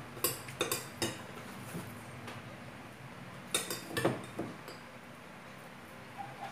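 Metal spoon clinking against a glass bowl while scooping rice: three quick clinks near the start, then a second cluster of clinks around four seconds in.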